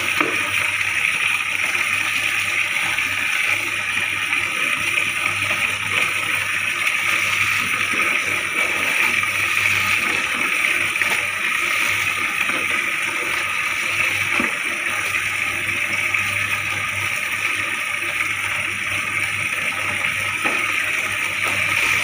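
Tap water running steadily into a plastic tub, with intermittent splashing as clothes are rinsed by hand. A steady low hum sits underneath.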